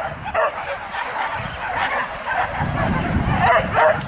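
Boar-hunting dogs barking and yelping in a run of short, high cries that come louder and closer together near the end.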